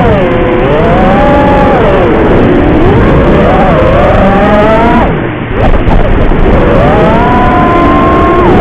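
FPV quadcopter's motors whining, the pitch rising and falling with the throttle. About five seconds in, the pitch drops sharply and the sound briefly dips as the throttle is chopped, then it climbs back to a steady high whine.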